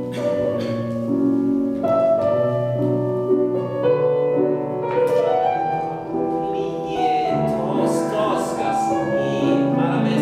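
Slow classical piano music for a ballet class exercise, with sustained chords that change about once a second.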